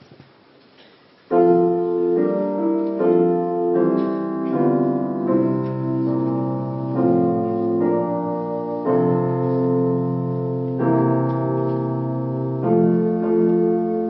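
After a brief hush, a piano starts about a second in, playing an introduction of sustained chords that change every second or two, ahead of the choir's entry.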